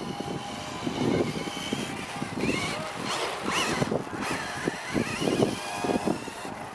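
Electric Kyosho Ultima 2WD RC buggy driving on loose dirt. Its motor whines, rising and falling in pitch as it speeds up and turns, most strongly about halfway through, over the crunch of its tyres on the dirt.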